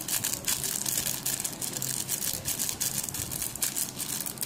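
Plastic seasoning packet crinkling and rustling as hands shake and squeeze sesame and seaweed flakes out of it: a rapid, continuous run of small crackles, over a steady low hum.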